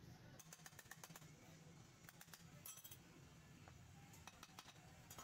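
Faint clinks and taps of small metal parts and hand tools being handled during engine assembly, a scatter of light clicks over a low steady hum.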